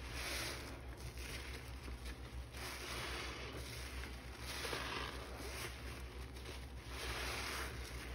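Soap-lathered sponge squeezed by hand in sudsy water, each squeeze a wet, squelching hiss of foam and water. About four squeezes come roughly every two seconds.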